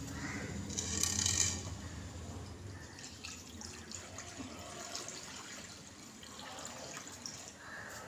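Water poured from a plastic jug into a shallow terracotta dish, splashing loudest about a second in and then going on more quietly.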